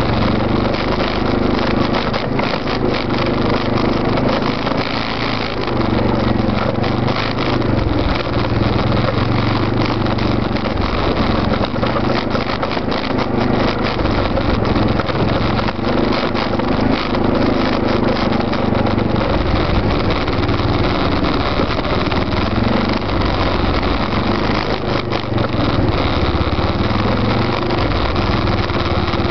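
Arctic Cat 650 H1 ATV's single-cylinder engine running beneath a rack-mounted camera while riding a rough, rocky trail, its pitch rising and falling with the throttle. Many short knocks and rattles come from the machine bouncing over the rocks.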